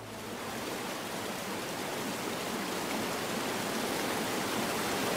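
A steady, even rushing noise, like falling rain, that starts suddenly and slowly grows louder.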